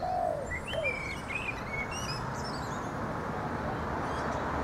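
Small birds chirping in short calls during the first couple of seconds, over a steady low rumble from an approaching garbage truck's engine that slowly grows louder.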